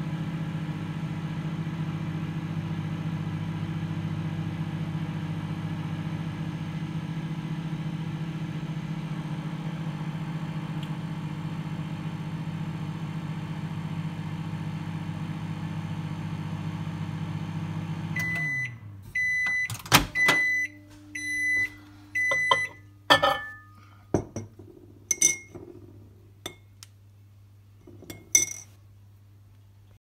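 Microwave oven running with a steady hum, with a mug of water and a metal spoon inside, then stopping about 18 seconds in at the end of its cycle. A series of short end-of-cycle beeps follows, mixed with sharp clicks and knocks as the door is opened and the ceramic mug is taken out.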